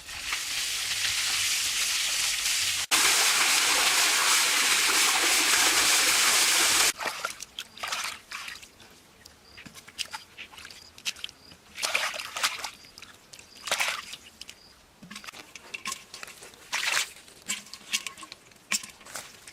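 Water rushing steadily for about seven seconds, cutting off abruptly, followed by scattered sloshes and small splashes.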